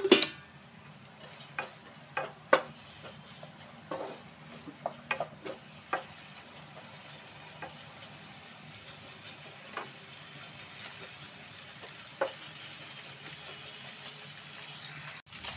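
Sliced onions and green chillies sizzling in hot oil in a non-stick kadai, sautéed lightly so they stay crunchy, with a steady frying hiss. A wooden spatula stirs them and knocks against the pan now and then, most often in the first half.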